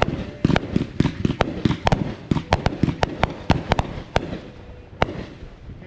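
Consumer fireworks going off in rapid, irregular bangs and cracks, several a second, thinning out after about four seconds with a last single bang about five seconds in.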